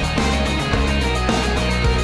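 Background rock music with distorted electric guitar and a steady beat.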